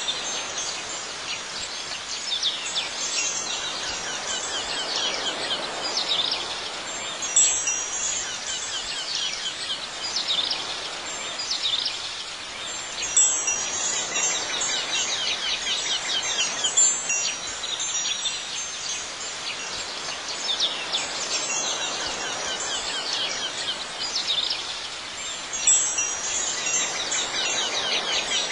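Wind chimes ringing on and off every few seconds over a steady soft hiss, a relaxing Zen ambience soundtrack.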